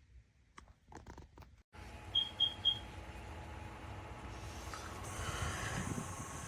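A few faint clicks, then a small portable air cooler's fan running with a steady airy hiss and light motor hum. Three quick high electronic beeps sound about two seconds in, and the airflow noise gets louder and hissier after about five seconds.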